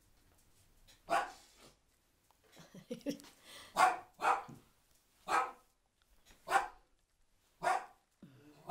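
Black dog barking: about six single, short, sharp barks, roughly a second apart.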